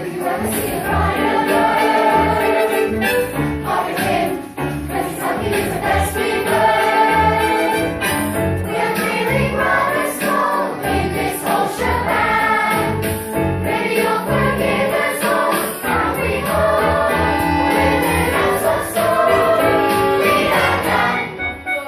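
A group of voices singing a musical-theatre number together over an instrumental backing.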